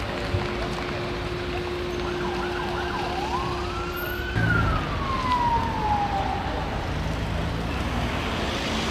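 Emergency vehicle siren over street and traffic noise: its pitch rises for about a second, then falls away slowly over the next two. A steady low hum underneath cuts off about four seconds in.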